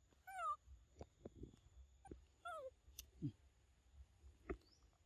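A young macaque gives two short, falling, wavering whimper-like calls about two seconds apart. A low falling grunt and a few sharp clicks come in between.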